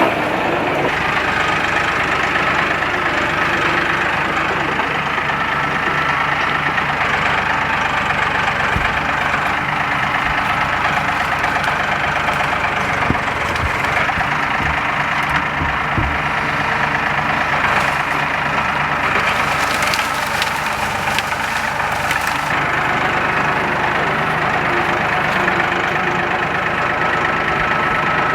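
A motor vehicle's engine idling steadily, with a few short knocks scattered through the middle.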